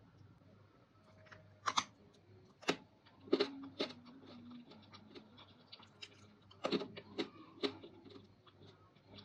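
Crisp crunching of dried fruit or vegetable pieces being bitten and chewed close to the microphone: irregular groups of sharp cracks, the loudest about two seconds in, around three and a half seconds, and again past the middle.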